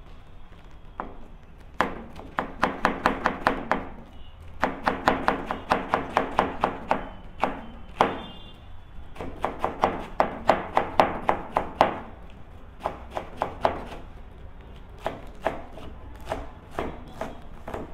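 Chef's knife rapidly chopping cabbage on a plastic cutting board: quick, even runs of strokes, about five or six a second, broken by short pauses between runs.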